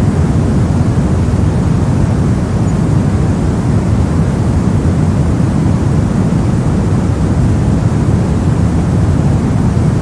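Steady soft white noise: an even, deep rush with most of its weight in the low range and little hiss up top, without any tone, pulse or change.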